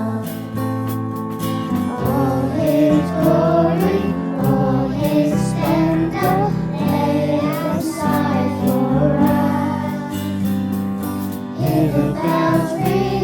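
A choir singing a Christmas worship song over instrumental backing with a steady beat.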